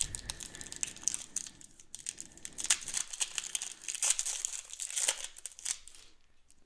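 Plastic wrapper of a trading-card pack crinkling and tearing as hands pull it open, a run of sharp crackles that thins out near the end.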